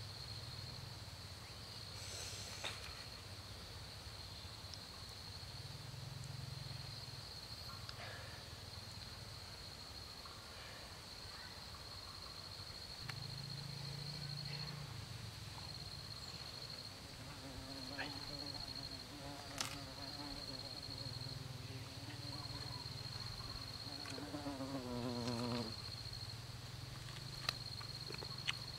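An insect trilling steadily at a high pitch in the forest, broken now and then by short gaps, with a few small clicks and rustles of hands handling the food.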